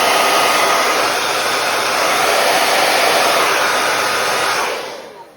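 Handheld hair dryer blowing steadily with a faint whine, driving poured acrylic paint across a canvas; it is switched off near the end and its noise dies away.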